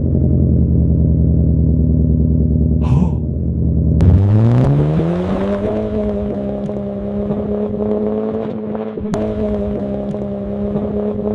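Subaru flat-four boxer engine with its uneven-firing, unequal-length burble, idling steadily. At about four seconds it is revved up, the pitch rising over a second or so, and then held at raised revs.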